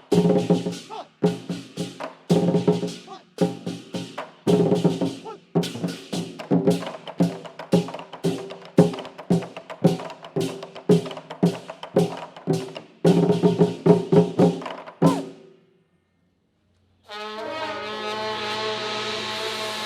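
Festive stage music with brass and wood-block percussion: a run of sharp, rhythmic accented hits that cuts off about fifteen seconds in. After a second of silence a long held chord begins.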